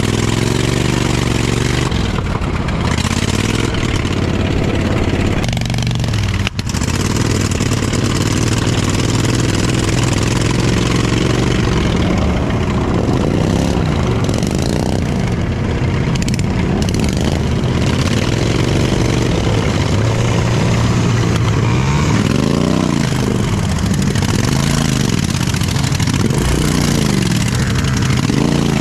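Off-road lawnmower's engine running hard, its pitch rising and falling again and again as the throttle is worked over rough ground. There is a brief break in the sound about six and a half seconds in.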